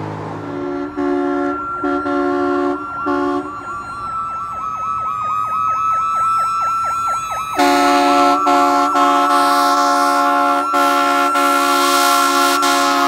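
Fire truck's warning devices: several short air horn blasts, then a fast electronic siren yelp, then the horn held down with a few brief breaks. Under it all a siren holds a high steady wail that slides a little lower near the end.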